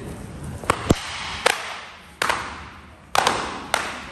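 Cloth jiu-jitsu belts lashed against a person's back as they walk a belt-whipping gauntlet: about six sharp smacks at uneven intervals, each ringing briefly in a large hall.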